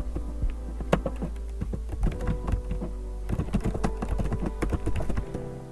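Typing on a computer keyboard: an uneven run of quick key clicks.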